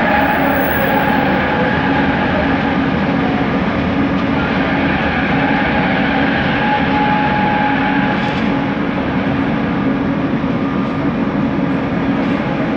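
Bombardier Innovia ART 200 light-metro train running on the line, heard on board: steady rolling noise with several steady whining tones from its linear-induction motors.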